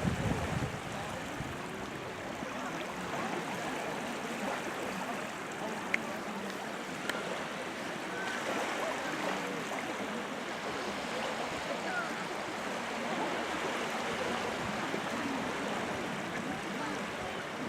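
Small Baltic Sea waves washing onto the shore: a steady wash of water.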